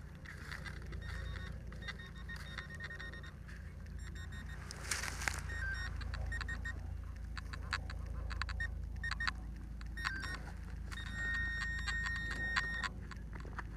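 Digging out a metal-detector target: many small scrapes and clicks of a digging tool working through dirt and stones. Near the end a metal detector gives a steady high beep for about a second and a half, then a short one.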